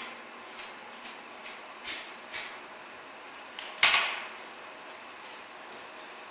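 A handful of light clicks about half a second apart, then a louder knock about four seconds in, over a steady hiss.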